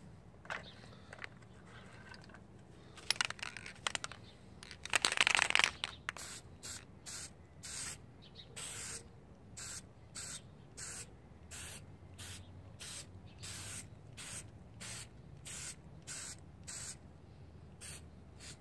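Aerosol can of copper gasket sealant spray being sprayed onto a cylinder head gasket in many short hissing bursts, about two a second. There is a longer, louder burst of noise about five seconds in.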